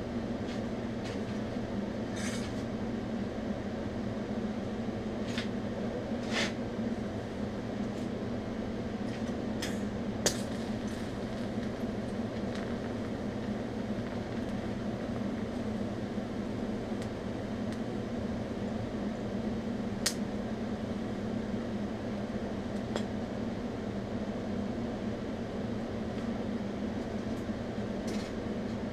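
Steady electrical hum during TIG welding at about 80 amps, with a few short sharp ticks, the clearest about ten and twenty seconds in.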